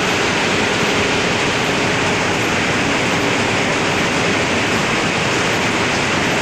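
Pneumatic comber waste collection system in a spinning mill, running: a steady, loud rush of air and machinery through the overhead suction ducting, with a faint steady hum underneath.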